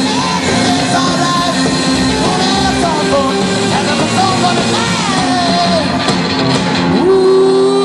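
Rock and roll band playing live and loud: electric guitars and drums with vocals, heard from the audience, with a long held note near the end.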